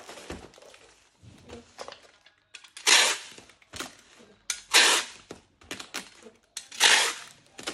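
Handling noises: three short rustling or scraping bursts about two seconds apart, with light clicks and knocks between them.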